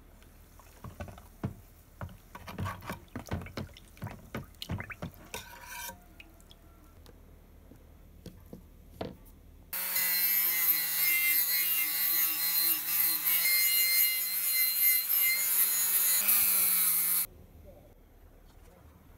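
Handheld power tool spinning a wire brush wheel against the steel of an old hawkbill folding pruning knife clamped in a vise, scrubbing off rust: a steady motor tone with a bright scratching hiss that starts abruptly about ten seconds in, shifts in pitch a couple of times as it is pressed on, and cuts off suddenly. Before it, a few seconds of light clicks and knocks.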